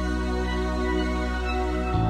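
Instrumental break of a pop song from an animatronic stage show: sustained chords held steady, changing to a new chord at the very end.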